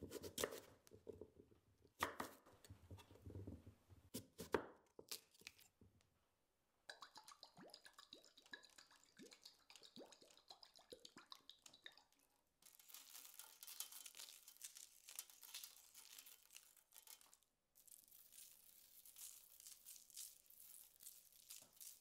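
A chef's knife chops through a raw sweet potato onto a wooden cutting board, with several sharp strokes over the first five seconds. Olive oil is then drizzled onto a baking tray with small drips and splatters. After that, coarse salt and chilli flakes patter onto the tray in two stretches of fine grainy hiss.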